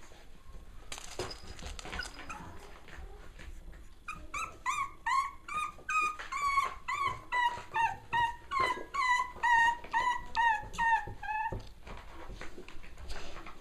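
Cavalier King Charles Spaniel puppy yipping over and over, about two short high yips a second for several seconds, starting about four seconds in. Before that, soft scuffling and clicks of puppies at play.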